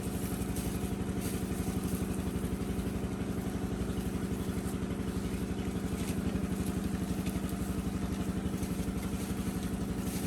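A small engine running steadily at idle, with an even pulse and no change in speed.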